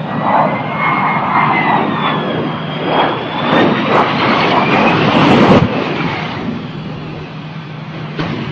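Hovering jet aircraft's engine running with a loud roar and a high whine that slowly glides in pitch. The jet crashes, with crashing and scraping sounds as it hits the ground, and the noise is loudest about five and a half seconds in, then drops sharply.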